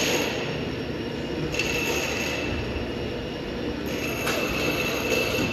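Steady mechanical workshop noise from machinery running in an aircraft restoration hangar, with a thin high whine that comes and goes three times.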